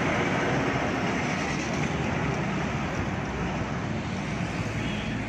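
Steady rumble of heavy vehicle engines running, with a dense hiss over it and no distinct knocks or revs.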